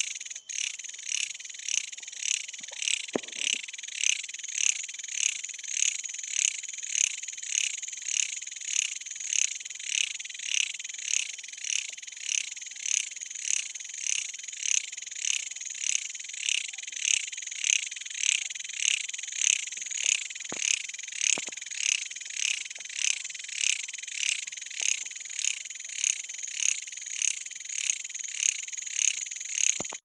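Katydid (long-horned grasshopper) singing: a high, buzzing, pulsing trill, about one and a half pulses a second, steady throughout.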